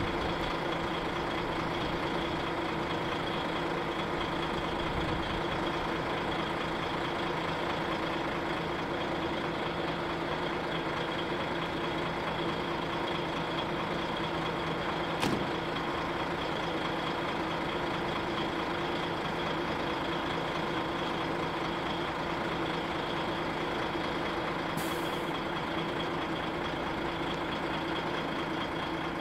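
Heavy-haulage truck diesel engines running at a steady drone. There is a sharp click about 15 seconds in and a short hiss of air about 25 seconds in.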